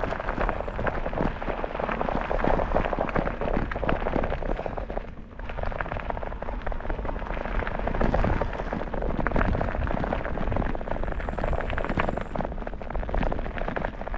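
Bicycle tyres crunching over a gravel path with a constant crackle, under a low rumble of wind on the microphone; the noise dips briefly about five seconds in.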